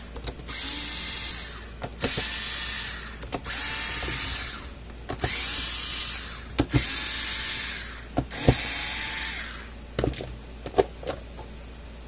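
Cordless electric screwdriver running in six short spins of about a second each, backing out the screws of a plastic scale housing. Each spin winds up with a short rising whine, with clicks and knocks between them. The last two seconds hold only clicks from handling the plastic case.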